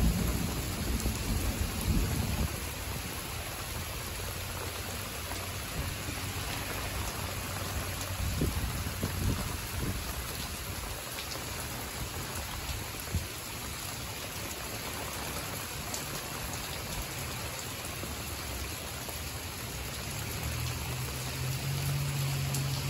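Steady rain falling on garden plants and mulch, an even hiss throughout, with a few low thumps in the first seconds and a low hum building near the end.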